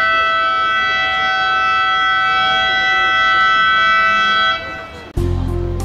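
A long, steady horn blast: a chord of several held tones that does not rise or fall in pitch and cuts off about four and a half seconds in. Music with a heavy beat begins near the end.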